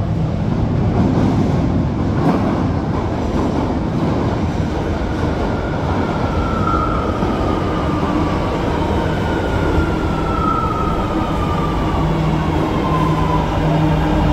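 Alstom 300 electric subway train pulling into the station, its running noise loud throughout, with a whine that falls in pitch as it slows. A steady low hum comes in near the end as the cars roll alongside the platform.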